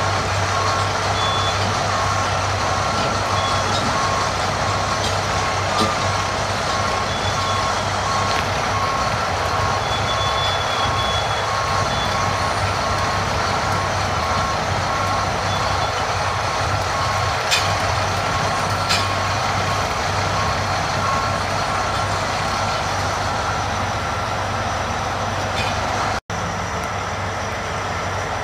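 Diesel engines of heavy tracked sideboom tractors running steadily under load, with a backup alarm beeping in a steady repeating pattern over them that stops about two-thirds of the way through. A couple of sharp metallic clicks come near the middle, and the sound drops out for an instant near the end.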